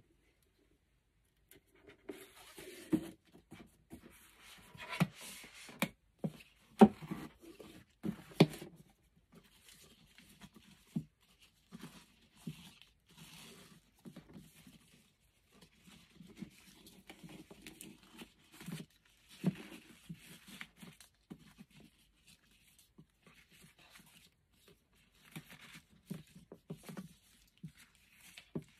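A rigid cardboard gift box being handled, with several sharp taps and knocks in the first several seconds. Then the rustle and slide of a ribbon being pulled through the box front and tied into a bow.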